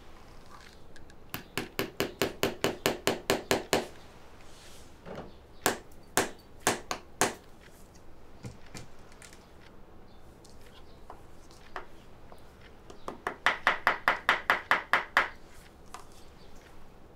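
Shoemaker's hand tool tapping rapidly on a shoe at a workbench. A quick run of about a dozen taps comes about a second in, then four slower taps, then another quick run of about a dozen near the end.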